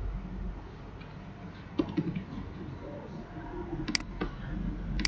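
A few sharp clicks of a computer mouse and keyboard, the sharpest about four seconds in, over a low steady hum.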